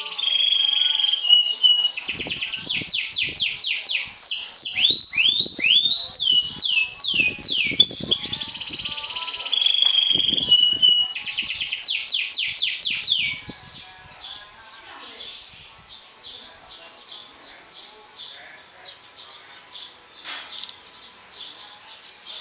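Canary singing: fast trills of repeated sweeping notes broken by short held whistled tones, loud for about thirteen seconds and then dropping to faint scattered chirps.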